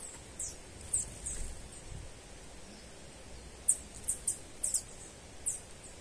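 Small songbirds giving short, very high, thin down-slurred chirps: a few scattered ones, then a quick run of five or six about four seconds in, over a faint steady background hiss.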